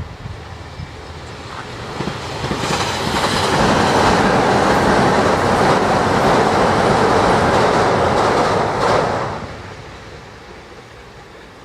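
A JR Kyushu limited express electric train passes at speed. Its rush and wheel clatter build over about two seconds and stay loud for about five seconds, with a few sharp clacks over rail joints. The sound then drops away quickly near the end.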